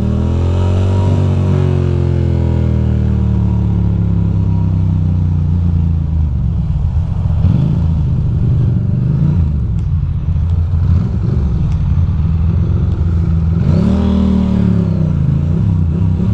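2006 Ducati Monster 620's air-cooled L-twin engine, heard from the rider's seat while riding. The revs swell and ease off over the first few seconds, then the engine runs choppy and uneven at low revs through slow traffic, with a brief rev-up and drop near the end. The owner blames this lumpy low-speed running on worn spark plugs.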